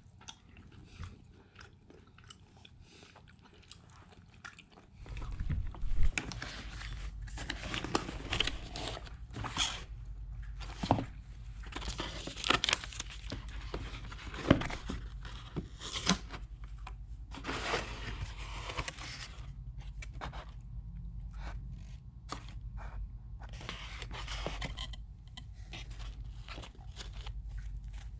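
Soft chewing of a baked mozzarella stick, then cardboard pizza boxes being handled and opened, with repeated crackling, rustling and scraping over a steady low hum that starts about five seconds in.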